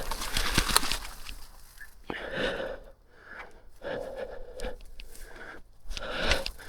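A person breathing heavily and audibly, a breath about every second and a half, from the exertion of riding a mountain bike on the track. A few light clicks come in the first second.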